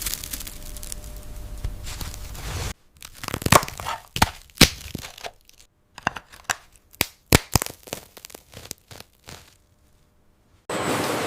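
Crispy fish crackers crunching and snapping: a string of sharp, irregular crackles with short silences between them.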